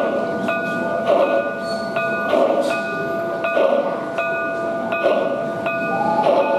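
Sound unit of a model Union Pacific Big Boy steam locomotive playing slow, even exhaust chuffs over a steady whine.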